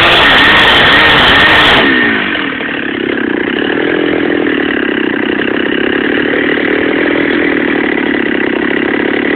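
Chainsaw engine revving unevenly, its pitch wavering up and down, then falling about two seconds in and settling to a steady idle.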